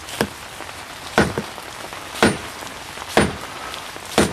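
A stonemason's hammer striking the edge of a sandstone block, five sharp cracks about a second apart, knocking chips off to square the stone.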